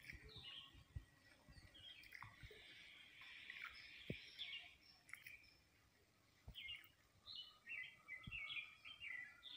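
Faint birds chirping, with short repeated calls, and a few soft low thumps.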